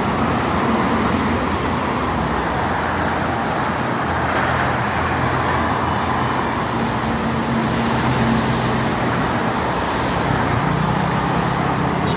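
Steady noise of heavy motorway traffic, with cars, buses and trucks passing at speed. The low engine hum of heavy vehicles rises out of it now and then, most plainly in the second half.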